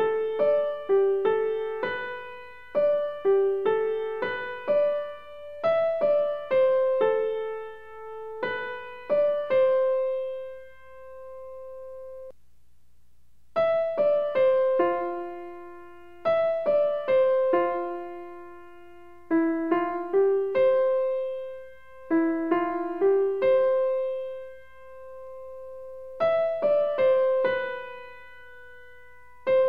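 Background piano music: a slow melody of single struck notes, each fading away, with a short break about twelve seconds in.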